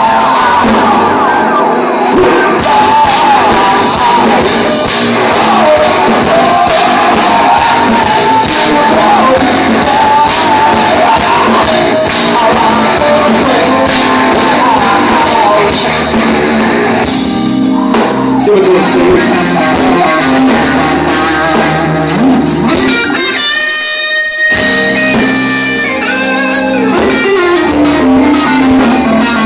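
A progressive metal band is playing live, heard from the audience: guitars, drums and singing. About 23 seconds in, the bass and drums cut out for about a second, leaving a few high, clear guitar notes, and then the full band comes back in.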